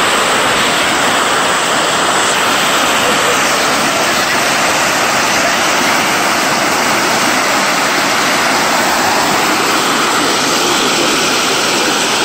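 Strong outflow of water gushing into a canal as a white-water jet: a loud, steady rush.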